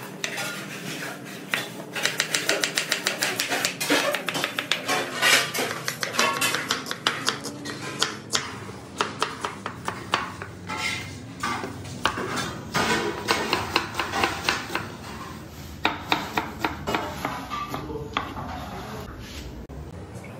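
Kitchen knife slicing red onions on a wooden board: a fast run of sharp taps as the blade cuts through and strikes the wood, stroke after stroke.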